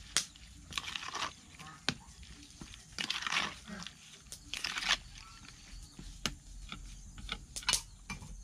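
Metal spoon stirring and turning raw sliced beef in a plastic bowl: wet, squelching scrapes in irregular bursts, with a few sharp clicks of the spoon against the bowl.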